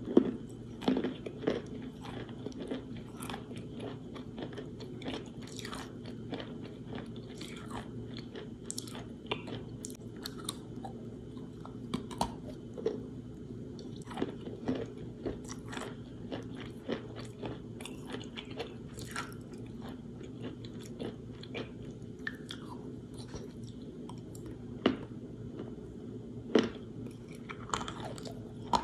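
Close-up chewing and crunching of wet, water-soaked chalk, with sharp crackles coming irregularly through the whole stretch over a steady low hum.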